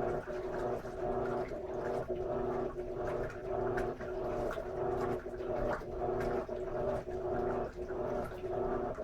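Electrolux LM13Q top-load washing machine agitating a load of jeans with its lid closed: a steady motor hum with churning, dipping about once a second as the agitator reverses.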